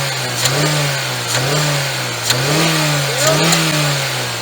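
Jeep Renegade engine revved in repeated short blips, about one a second, with sharp ticks near the top of the revs. This is the ugly rattling engine noise ("grilado") being diagnosed, which the mechanic puts down to pinging or a knocking piston pin or piston skirt.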